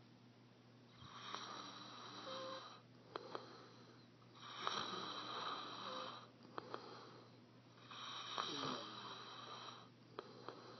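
A sleeping person snoring: three long, breathy snores, roughly one every three and a half seconds.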